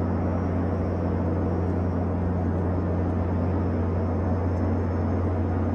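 Steady cabin noise of an aircraft in flight: an even rushing with a constant low engine hum.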